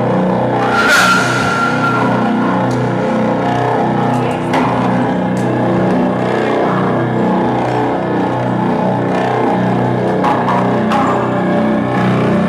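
A live band playing loud music, dense and rhythmic, with a sharp crash about a second in.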